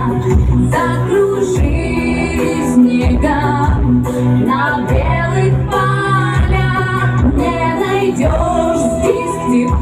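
A woman singing a pop song in Russian over an instrumental backing track with a steady bass pulse.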